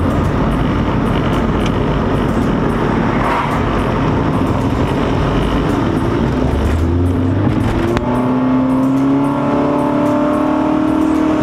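Steady road and wind noise inside a moving car's cabin. From about two-thirds of the way in, an engine rises slowly in pitch as the car speeds up to overtake a truck.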